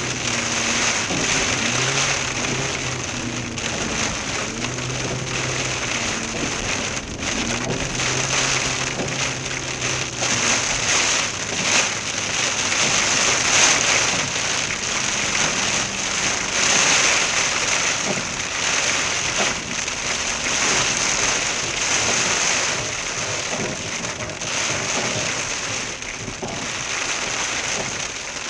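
Hail pelting a car in a heavy hailstorm: a dense, steady rattle of countless small impacts. A low hum comes and goes in the first half.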